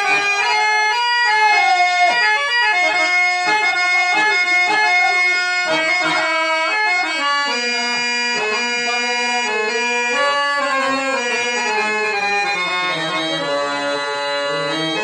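An 85-year-old German-reed harmonium playing a raga melody. Quick runs of notes in the first half give way to slower held notes that step downward in pitch.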